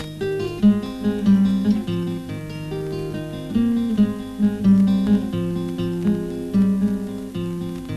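Background music on acoustic guitar: a run of plucked notes.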